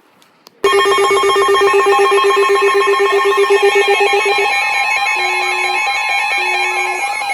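Weather radio alert alarms sounding: several electronic tones at once, a rapid beeping, steady high tones and a fast up-and-down warble, starting suddenly about half a second in. They are the alarm for a newly issued severe thunderstorm warning.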